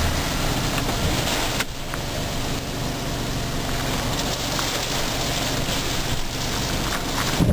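Steady rain on a car, heard from inside the car, with the car's running noise underneath. The sound dips briefly about a second and a half in, then carries on evenly.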